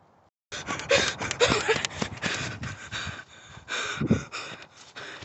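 A person running hard, gasping and breathing heavily, with quick footsteps on the forest floor and the phone microphone jostled. The sound starts abruptly about half a second in.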